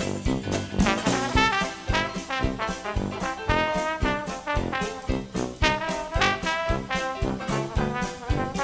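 Background music: upbeat swing-style jazz with brass horns over a steady beat.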